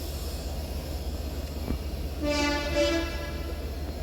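A train horn sounds two short blasts back to back, each about half a second long and on the same steady pitch, over a low steady rumble.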